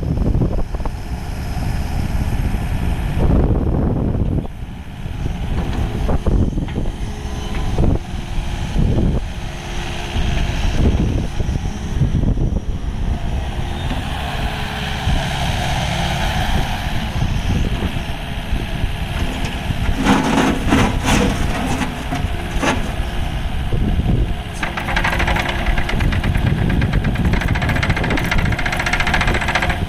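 Diesel engine of a Kubota KX080-4 midi excavator running, its sound swelling and easing several times as the machine is worked.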